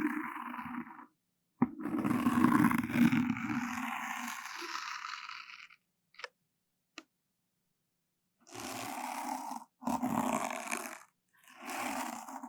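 Ear-flossing ASMR trigger: rough scraping rubs right against the microphone, like something drawn across it. One long, loud stroke lasts about four seconds, followed by two faint ticks and then three shorter strokes near the end.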